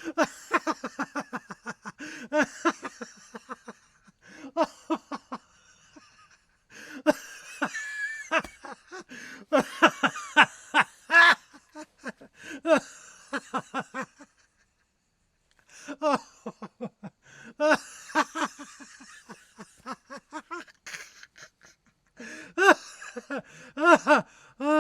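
A man laughing heartily in repeated bouts of quick pulsed ha-ha sounds, with brief pauses between bouts, the longest about two-thirds of the way through.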